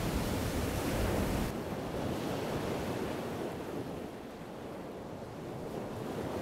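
Wind on the microphone over the wash of surf on a beach: a steady rushing noise that turns suddenly duller and quieter about a second and a half in.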